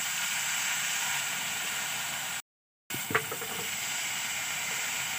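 Freshly added hyacinth bean pods and potato sizzling in hot oil in a kadai: a steady hiss. About two and a half seconds in it cuts out completely for half a second, and a small click follows as it comes back.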